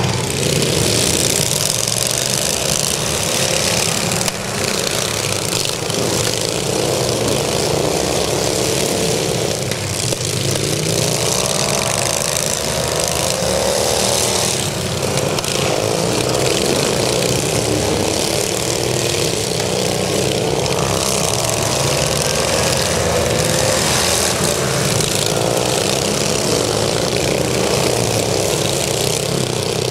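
Engines of several racing lawn tractors running hard together, a steady drone with pitches rising and falling as the machines pass and circle the track.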